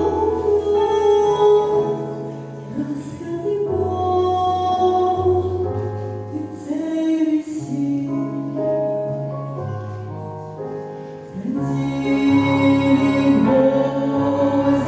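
Christian song: singing over held instrumental chords and a slow-moving bass line, growing louder and fuller about eleven seconds in.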